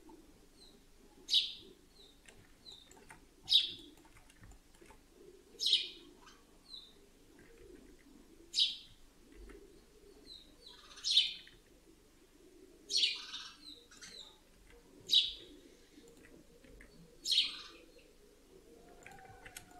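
A bird chirping in the background: single short calls, repeated about every two seconds, over a faint steady low hum.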